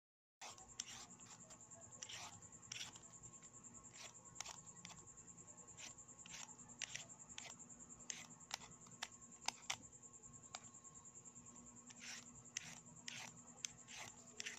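Cucumbers being peeled by hand: faint, irregular scraping clicks, about one or two a second, as strips of skin come away. A steady faint high-pitched whine runs underneath.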